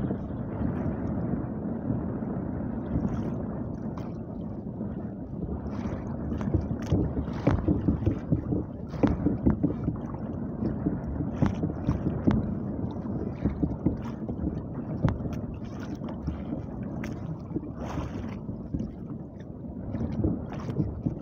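Wind buffeting the microphone and choppy sea water slapping and sloshing against a small outrigger canoe's hull, with scattered short knocks and splashes.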